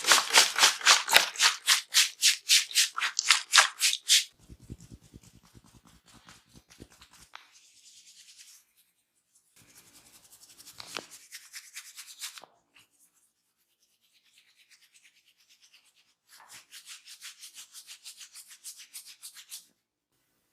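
Barber's hands massaging skin: quick, evenly spaced rubbing strokes, about five a second and loudest in the first four seconds, then softer spells of rubbing and strokes with short pauses between them.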